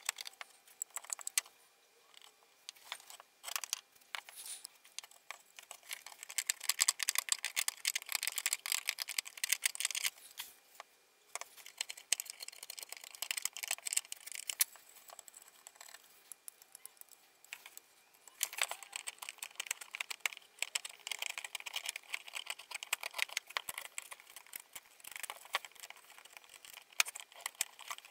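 Rapid dry scratching and clicking of a hand tool scraping at wood, in spells, with a short pause about halfway and a quieter stretch before it picks up again.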